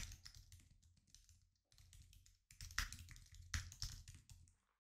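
Faint typing on a computer keyboard: quick, irregular keystrokes with short pauses, stopping shortly before the end.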